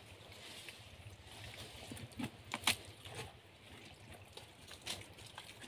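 Hand digging wet mud out of a burrow: faint squelching with a few short wet clicks, the loudest about two and a half seconds in.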